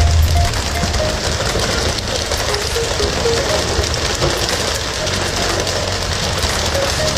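Steady engine hum and rushing water of a pole-and-line tuna fishing boat at sea. Faint music with a melody of short notes plays underneath.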